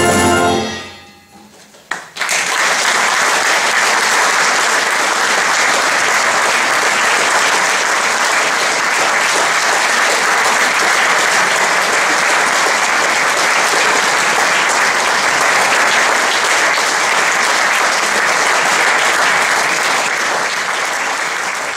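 A wind band's final held chord dies away in the first second, then after a brief hush the audience breaks into steady applause, which thins slightly near the end.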